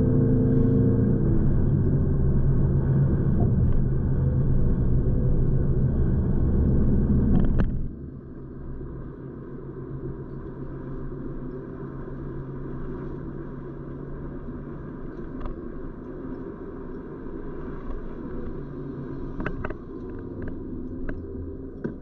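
Car driving, with steady engine and road rumble. About eight seconds in it drops suddenly to a much quieter, steady hum, and a few faint clicks come near the end.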